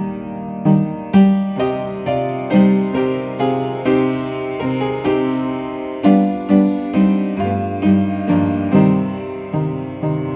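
Piano playing a hymn tune in a free arrangement: full chords over a moving bass line, a new chord struck about twice a second and left to ring and fade.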